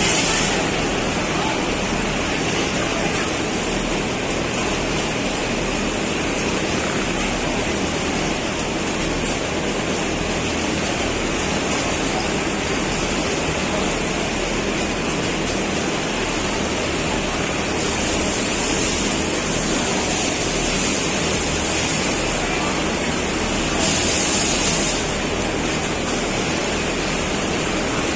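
Programmable sewing machine running steadily, a dense mechanical whir with hiss. The high hiss grows louder for a few seconds about two-thirds of the way in, and again briefly near the end.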